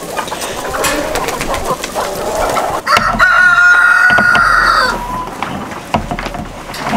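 A flock of chickens clucking, then about three seconds in a rooster crows once, a drawn-out call of about two seconds that is the loudest sound here.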